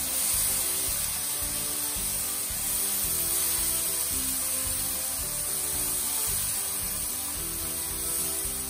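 Background music with short held notes changing every half second or so, over a steady high hiss.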